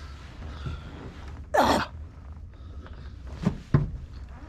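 A man's sharp breath through the nose, loud and brief, about a second and a half in, then two shorter breath sounds near the end, over a low steady rumble.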